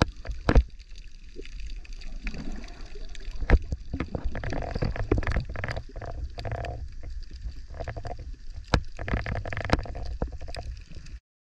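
Underwater water noise picked up by an action camera: a low rumble and sloshing with many irregular clicks and knocks, which cuts off suddenly near the end.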